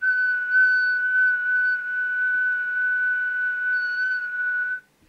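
Steady high-pitched test tone from an audio oscillator, used while setting the CB transmitter's FM deviation. It starts abruptly and cuts off shortly before the end.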